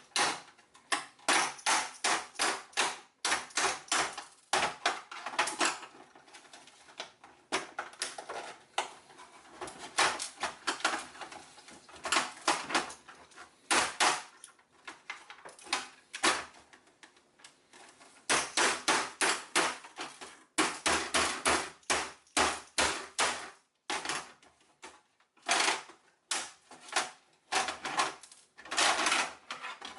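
Hammer striking the casing of a Toshiba Touro external hard drive to break it open, in runs of quick sharp blows, about three a second, with short pauses between.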